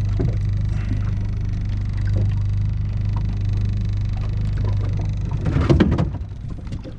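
A boat engine running steadily, a low even hum. About five and a half seconds in, a few knocks and rattles break in over it.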